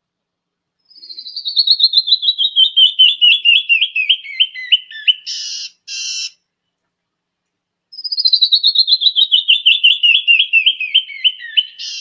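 Canyon wren song played from a recording: a cascading run of clear whistled notes falling steadily in pitch, closed by two short harsh notes. The song is heard twice, starting about a second in and again about eight seconds in.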